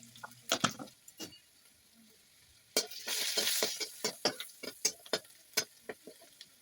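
Spices frying in hot oil in a karai, with a spoon knocking and scraping against the pan as it stirs and a short sizzle about three seconds in.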